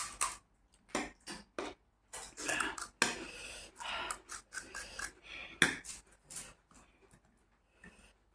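Close-miked mukbang eating sounds: a quick string of short, sharp clicks of cutlery against dishes mixed with bites and chewing of snacks, thinning out to a few faint ones over the last couple of seconds.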